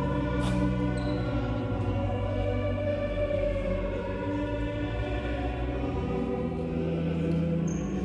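Background music: choral singing with long held notes that change every few seconds.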